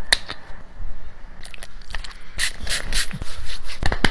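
Clicks and scraping from a small plastic container and its cap being handled, then a quick run of hand pats on a dog's short-haired side near the end.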